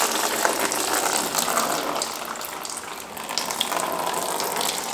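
Water and coolant pouring and splashing out of a Mazda 13B rotary engine into a drain pan, a steady run of liquid.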